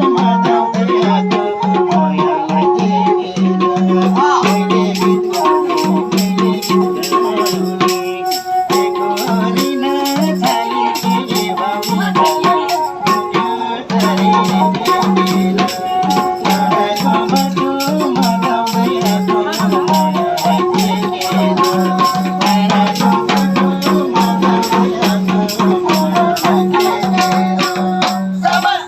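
Nepali folk music on sarangi with madal drum and rattling percussion, keeping a fast, steady beat. It stops abruptly near the end.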